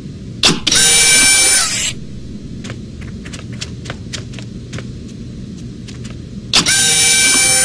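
Photocopier running twice: each time a click, then a steady mechanical whine about a second and a half long that dips in pitch as it ends. The first run comes about half a second in, the second near the end.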